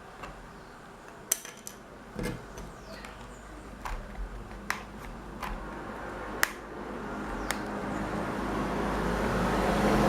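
Small sharp clicks and taps of tools against a tablet's plastic case and parts during disassembly. Over the last few seconds a hot-air blower starts up, a steady blowing hum that keeps growing louder.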